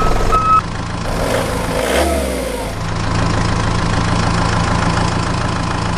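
Engine idling with a steady low hum. A brief whoosh with a falling tone passes over it from about one to three seconds in.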